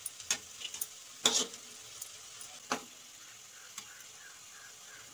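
Colocasia leaf pakoras sizzling steadily in hot oil in a kadhai, with a perforated metal skimmer knocking against the pan about four times as they are stirred and turned.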